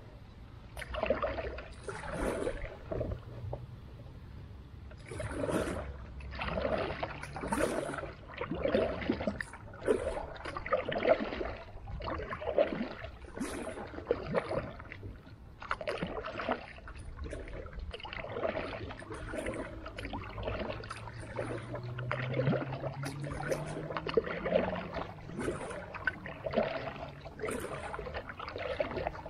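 Creek water splashing and sloshing in irregular bursts about a second apart, over a low hum that rises in pitch for a few seconds past the middle.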